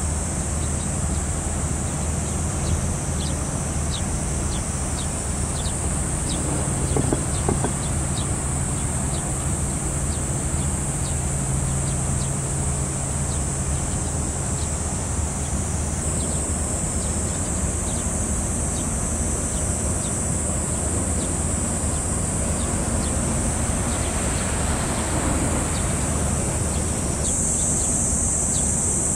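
Steady high-pitched insect drone with many short bird chirps in the first half, over the low, steady hum of a passing cargo ship's engine.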